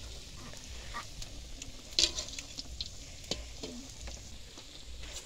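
Mandazi dough deep-frying in hot oil in a metal wok: a steady sizzle, with clinks of a metal turner against the pan, the loudest a sharp knock about two seconds in.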